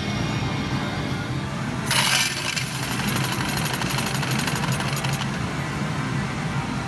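Pachislot medals swept from the machine's tray into the medal counter: a loud clatter about two seconds in, then a fast run of clicks for about three seconds as the counter takes the medals in. Steady slot-parlour din underneath.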